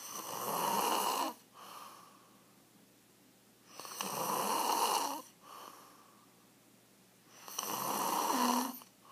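A man snoring loudly in his sleep: three long snores about four seconds apart, each followed by a short, quieter breath.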